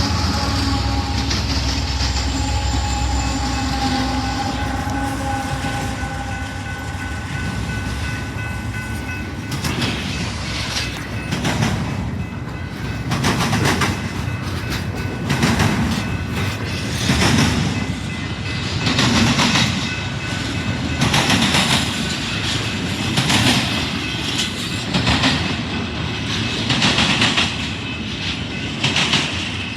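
A Union Pacific locomotive's air horn sounds a steady chord that fades out over the first several seconds. The train then rolls by with a continuous rumble and rhythmic clacks of its wheels over rail joints, roughly once a second.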